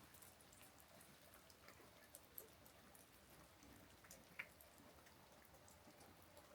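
Faint, gentle rain: a soft steady hiss with scattered individual drops ticking, one drop standing out a little over four seconds in.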